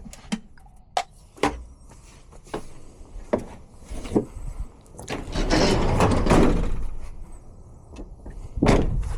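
Footsteps and sharp knocks about once a second, with a vehicle passing that rises and fades about five to seven seconds in.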